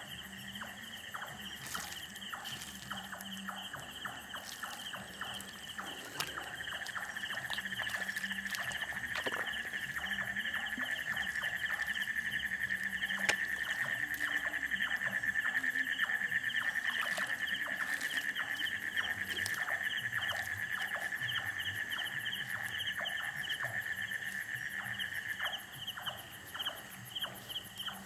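Night insect chorus: a steady high trill that swells louder about six seconds in and drops back near the end, with a faster pulsing chirp above it throughout. Scattered light clicks and knocks come through it.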